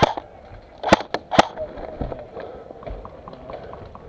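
Airsoft gunfire: four sharp snaps, one at the start and three close together around a second in, then a faint, fast patter of ticks that carries on to the end.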